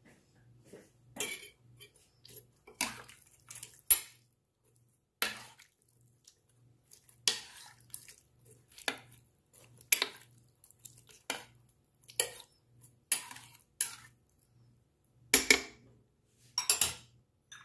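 Metal spoon scraping and clinking against a slow cooker's crock while pot roast in broth is stirred and spooned. The strokes are sharp and irregular, roughly a second apart, with the loudest two near the end.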